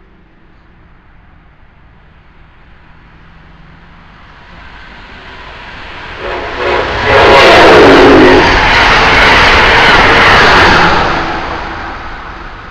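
Amtrak Keystone Service train led by an ACS-64 electric locomotive passing at speed. The rumble and rush of the train builds over several seconds, is loudest for about four seconds past the middle, then fades away near the end.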